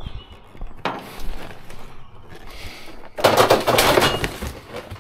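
Scrap being handled and dropped: a single knock about a second in, then a longer burst of rattling, clinking clatter of hard objects knocking together about three seconds in.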